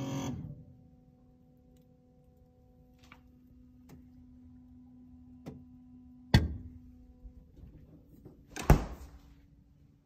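GE Café 48-inch built-in refrigerator running with a steady low hum, broken by a few light clicks and two loud thunks, about six and a half and nine seconds in. The hum drops out after the first thunk and comes back slightly higher after the second.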